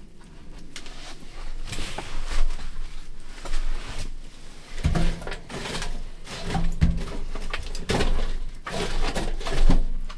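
Split firewood being pushed into the firebox of a small stainless steel wood stove: a string of knocks, clunks and scrapes of wood against the steel, with the sharpest knocks in the second half.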